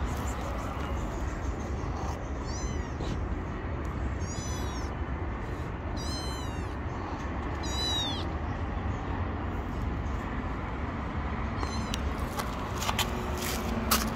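A tabby kitten meowing: about five short, high-pitched meows a second or two apart, then a pause, over a steady low background rumble.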